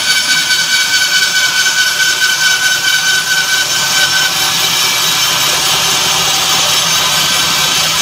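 Band sawmill cutting lengthwise through a log, the blade and the mill's motor running steadily under load. A thin high whine from the cut stops about four seconds in, while the cutting noise goes on.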